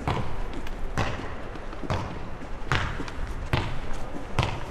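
Footsteps on concrete, a steady walking pace of about one step a second, each step a short sharp knock with a low thud, over a constant low background hum.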